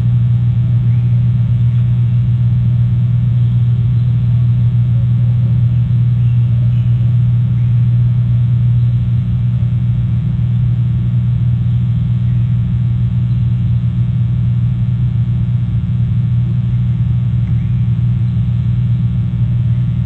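Steady low hum with a stack of evenly spaced overtones, unchanging and fairly loud, like electrical hum on a microphone feed. A few faint, brief high chirps sit barely above it.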